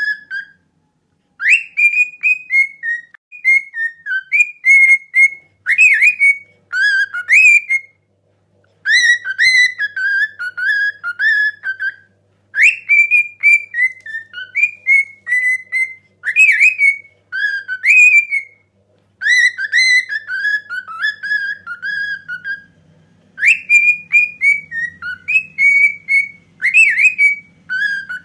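A cockatiel whistling a Turkish mehter march melody in phrases of a few seconds each, with short pauses between them.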